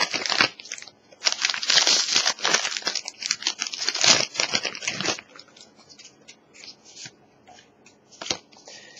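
Foil Pokémon TCG booster pack crinkling loudly as it is torn open along its side, for most of the first five seconds. Then quieter rustling as the cards are handled, with one sharp click near the end.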